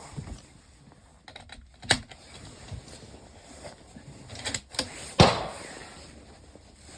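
Sharp mechanical clicks and clacks from handling the Tikka T3x bolt-action rifle, a few seconds apart, followed about five seconds in by a louder sharp crack that dies away over about a second.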